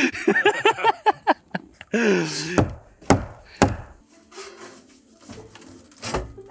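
A man's voice briefly, then three sharp knocks about three seconds in; after that faint scraping and clatter as a metal chimney pipe is fitted onto a small wood stove, with a dull thump near the end.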